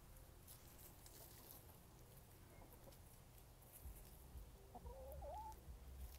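Faint sounds of backyard hens foraging, with one short hen call that rises and falls about five seconds in.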